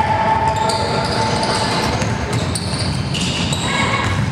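Basketball dribbled on a wooden gym floor during play. Short high squeaks come several times, typical of players' shoes on the court, with voices calling in the background.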